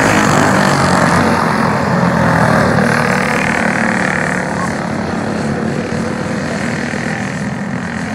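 Several racing go-kart engines running hard as the pack goes by. The sound is loudest at the start and eases slowly as the karts pull away.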